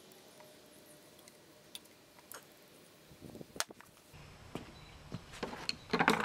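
Light clicks and taps of hand tools and small metal parts handled at a workbench. Faint for the first three seconds, then a quicker run of sharper clicks and knocks that grows louder near the end.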